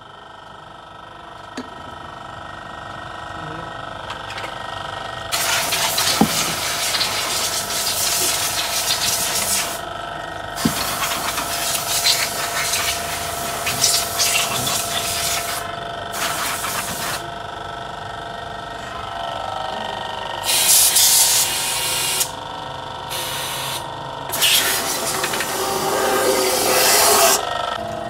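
A pressurised spray hissing in several bursts of one to five seconds each, over a steady background hum.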